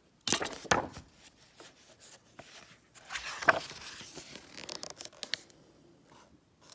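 Paper rustling and sliding as the pages of a picture book are turned by hand, in two bursts: one just after the start and a longer one about three seconds in, with quieter rubbing between.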